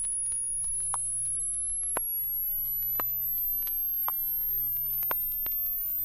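A pure test tone from a stereo demonstration record, sweeping slowly upward from about 10,000 to 13,000 cycles per second as a thin, very high whine. Faint record-surface clicks come about once a second.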